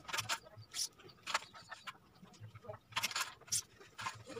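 Li-Ning No. 1 badminton string being pulled by hand through the racket's grommets on a stringing machine: several short hissing zips of string, with a pause about two seconds in.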